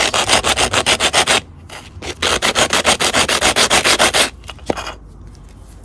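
Small cut tile petal rubbed rapidly back and forth along a 200-grit hand sanding pad, smoothing off its rough nibbled edge. The strokes come in two quick runs with a short pause between, followed by a small click.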